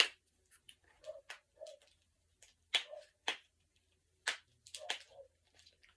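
A fidget toy being handled, making short, irregular clicks and taps, the sharpest one right at the start. The child playing with it calls it so noisy.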